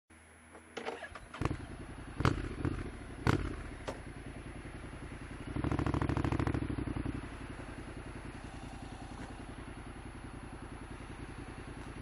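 Honda NC750X parallel-twin motorcycle engine running, with a few sharp knocks in the first few seconds. About five and a half seconds in it revs up louder for a second and a half as the bike pulls away, then settles to steady running.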